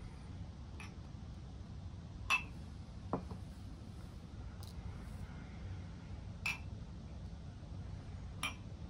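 Glass sake bottle and its packaging being handled: about six light, separate clinks and knocks, the loudest about two seconds in, over a low steady room hum.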